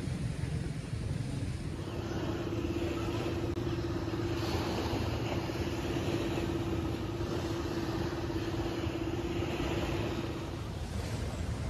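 An engine drones steadily at one pitch over a constant rushing noise, starting about two seconds in and fading out near the end.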